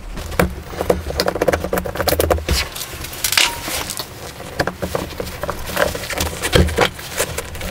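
Screwdriver turning a screw out of a door handle's fitting: irregular metal clicks, ticks and scrapes, with a quick run of small clicks in the first couple of seconds.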